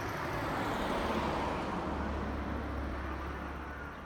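A vehicle passing by: a rush of noise that builds for about a second and then fades, over a steady low hum.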